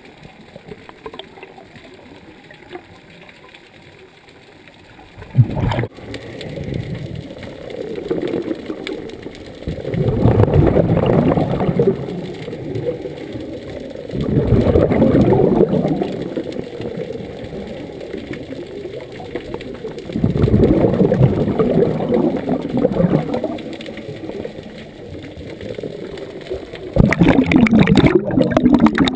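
Scuba regulator exhaust bubbles heard underwater: a diver's exhaled breath gurgling out in bursts about every five to six seconds. There is one sharp knock about five seconds in.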